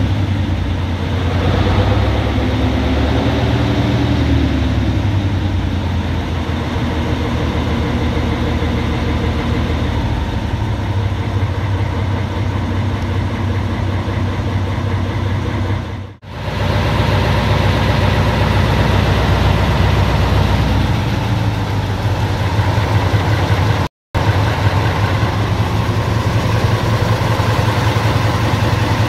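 Class 04 diesel shunter's Gardner eight-cylinder diesel engine idling steadily as it warms up after a few months out of use. The sound dips briefly about 16 seconds in and cuts out for a split second about 24 seconds in.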